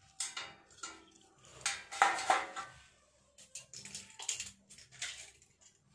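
A plastic 12 V cooling fan handled and set down in a bare steel amplifier chassis: a knocking clatter with a brief metallic ring about two seconds in, then lighter clicks of small parts.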